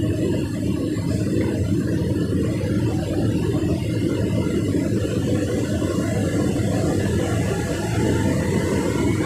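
Excavator's diesel engine running steadily with a low, even sound as its boom hoists the cone crusher's bowl.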